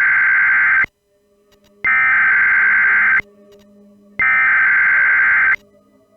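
Emergency Alert System SAME header: loud bursts of harsh, buzzing digital data tones that start and stop abruptly. The end of one burst is followed by two more, each about a second and a half long, with about a second between them.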